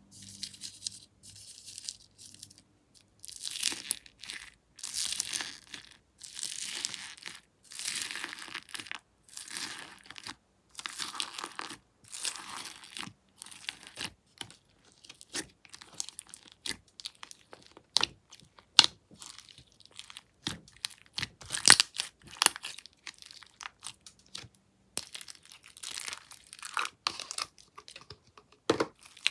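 Slime being squeezed, stretched and pressed by hand, giving crackly, crinkly swishes about a second long at first, then a flurry of short sharp pops and clicks, then longer crackling stretches near the end.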